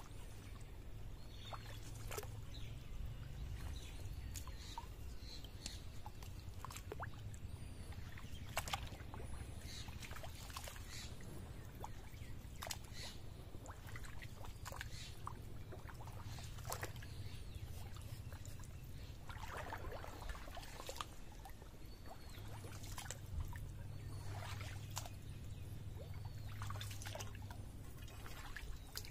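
Water trickling and splashing in scattered small splashes and drips, over a steady low hum.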